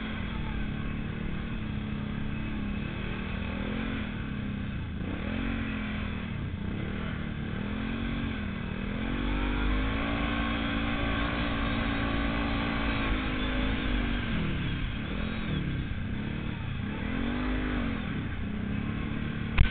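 Kawasaki KFX 700 ATV's V-twin engine running as it is ridden through snow, its pitch rising and falling again and again as the throttle is worked, held up longest in the middle. Wind rushes over the helmet-mounted microphone, and a sudden knock comes at the very end.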